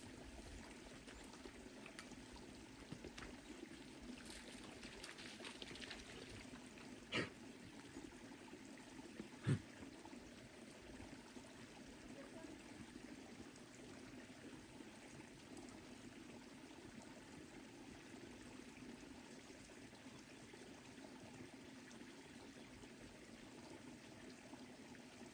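Faint, steady trickle of running water from a small creek. A brief sharp sound comes a little past seven seconds in, and another about two seconds later.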